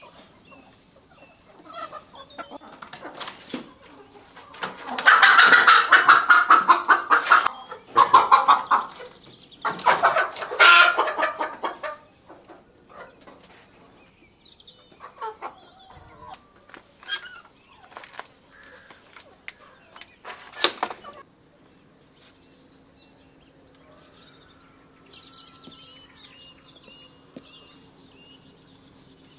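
Domestic chickens clucking: a loud, dense stretch of rapid calls from about five to eleven seconds in, then scattered shorter calls that thin out.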